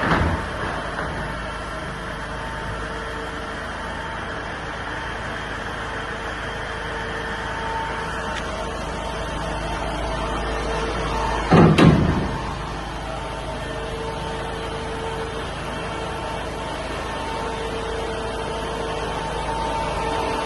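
Iveco Daily 3.0-litre van running steadily at idle, with a door shut twice: once right at the start and again, with a double knock, about twelve seconds in.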